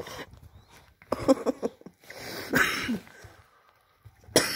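Small dog snarling and yapping in about four short, rough bursts, some falling in pitch, as it play-attacks its owner.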